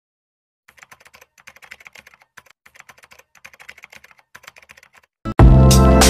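Faint, rapid computer-keyboard typing clicks in short runs, as a typing sound effect under on-screen text. About five seconds in, loud music with a strong beat cuts in suddenly.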